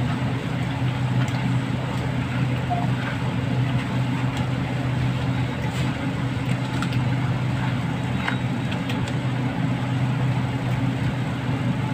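A steady low mechanical hum throughout, with a few faint wet squelches and clicks from hands kneading raw chicken pieces in marinade in a steel tray.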